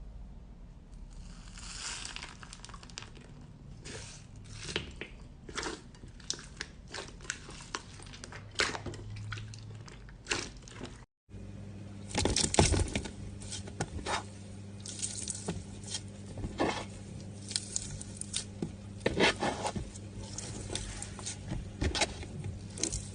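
Slime being squeezed, pressed and stretched by hand, giving irregular wet squelches and short sticky popping clicks. There is a brief silent break near the middle, and after it the squishing goes on over a faint steady hum.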